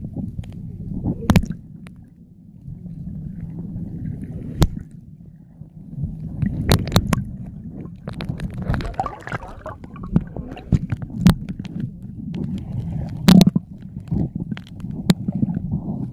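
Underwater sound picked up by a submerged camera: a muffled low rumble of moving water with scattered sharp clicks and knocks, and a short burst of hissing, bubbly gurgle about halfway through.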